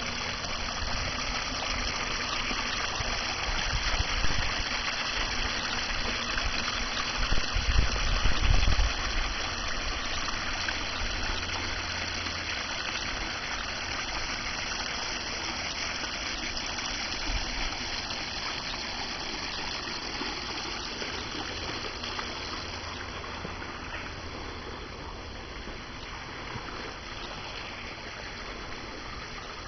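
Water splashing and trickling down small rock waterfalls into a stream, as a steady rushing. A few low rumbles come through about a quarter of the way in, and the water grows a little quieter near the end.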